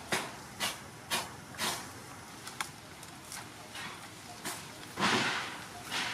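Crackling and rustling of a coconut palm's fronds and dry fibres as a green coconut is gripped and worked loose from its bunch: four sharp crackles about half a second apart, a few fainter ones, then a longer, louder rustle about five seconds in.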